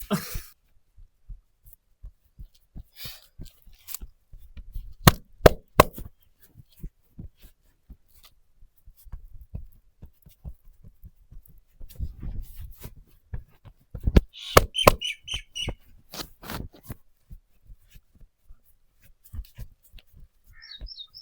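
Massage being given by hand: a series of sharp slaps, taps and knocks in irregular runs, the loudest clusters about five and fifteen seconds in.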